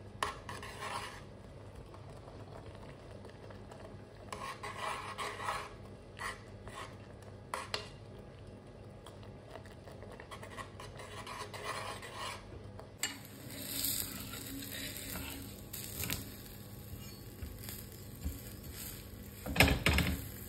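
Home cooking at the stove: a spoon stirring in a pot and clinking against it, with utensils and dishes knocking in short scattered bursts. A louder knock comes near the end.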